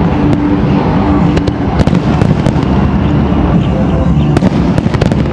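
Aerial fireworks display going off loudly in a dense, continuous volley: a deep rumble of shell bursts with many sharp crackles and pops scattered through it.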